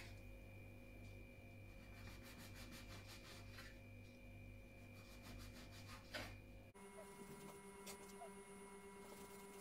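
Faint strokes of a kitchen knife cutting bread into cubes on a plastic cutting board, over a low steady electrical hum.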